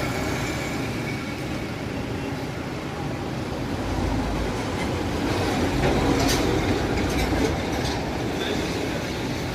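Steady vehicle and road noise: a continuous low rumble and hiss, growing a little stronger about four seconds in, with a brief sharp click about six seconds in.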